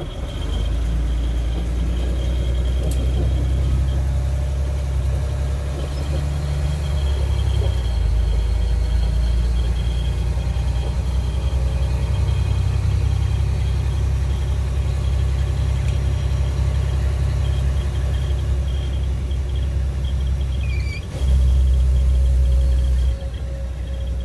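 Fire engine driving, heard inside its cab: a steady low rumble of engine and tyres on a dirt road, with a faint high steady whine over it. The rumble grows louder for a couple of seconds near the end.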